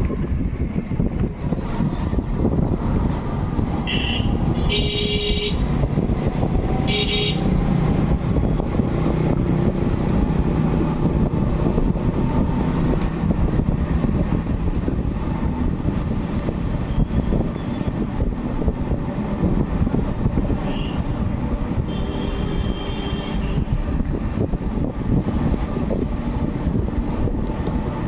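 Road travel noise, a steady rumble of wind and traffic, broken by short vehicle horn toots: two or three about four to seven seconds in and another couple about twenty-one to twenty-three seconds in.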